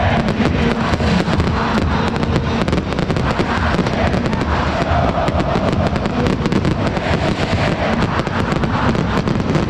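Fireworks crackling and banging in rapid, overlapping bursts over the steady noise of a packed stadium crowd.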